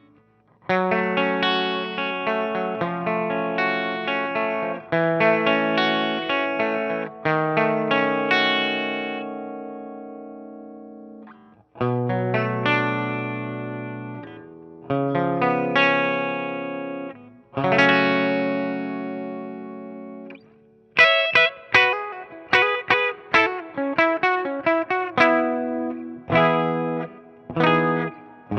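Clean electric guitar, a Gibson SG played through a hand-wired Fender Deluxe Reverb Reissue amp into a Celestion G12-65 speaker, with the amp's own spring reverb. Strummed chords ring out and fade, then later give way to quick, short, choppy chords.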